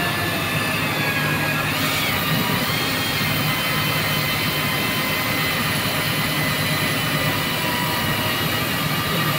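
Split-frame cold cutter clamped around well casing, running steadily as it cuts: a constant motor whine with several high tones over a hiss, its pitch dipping slightly about two seconds in.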